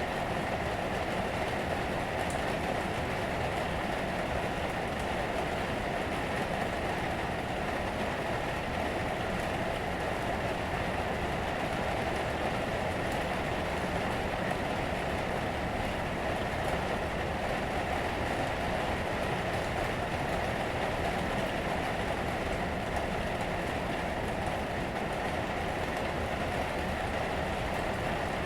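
Rain falling on the roof, heard from inside an attic: a steady, unbroken rush of rain with no let-up.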